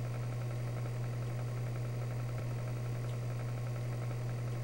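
Tank engine idling: a steady low rumble at an even level.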